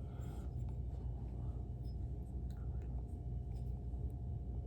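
Steady low room hum with a few faint, scattered clicks and light handling noise from pistol parts being taken apart.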